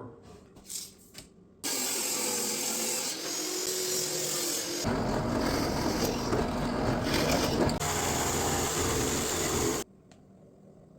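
Power tool working wood: a loud, dense machining noise that starts abruptly and cuts off sharply near the end, with a change in character about halfway through as the cut deepens or a second pass begins.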